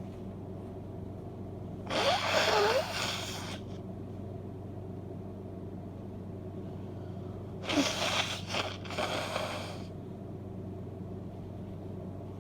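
A woman with a congested head cold sneezing twice, about six seconds apart. Each sneeze opens with a short voiced intake and breaks into a noisy blast lasting about a second and a half.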